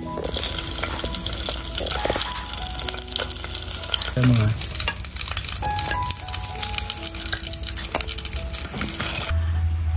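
Scorpions frying in hot oil in a metal pot, a dense sizzling crackle, with background music underneath. The frying sound cuts off abruptly about nine seconds in.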